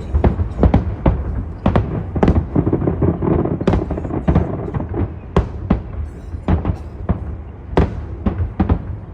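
Aerial fireworks display: a rapid, irregular run of sharp bangs, several a second, over a constant low rumble of further bursts.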